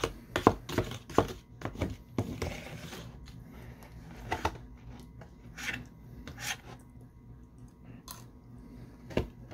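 A metal fork cutting into apple pie and scraping and clicking against the pie's container. There is a quick flurry of sharp clicks and scrapes over the first three seconds, then scattered taps, and a single sharp click near the end.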